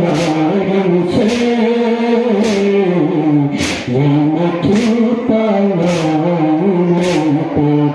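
A man singing a Balti noha, a mourning lament, through a microphone, with sharp slaps about once a second from mourners beating their chests (matam) in time.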